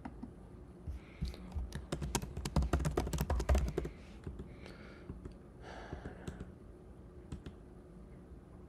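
Computer keyboard typing: a quick run of keystrokes starting about a second in and lasting about three seconds, then a few scattered single clicks.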